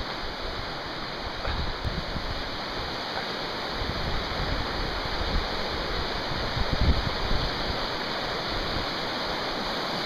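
Creek water rushing steadily over rocks and a small cascade, with a few low rumbles on the microphone.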